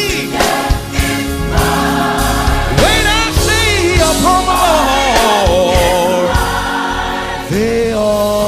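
Gospel quartet singing with band backing: a lead voice with wide vibrato over backing vocal harmonies, with drum hits through it.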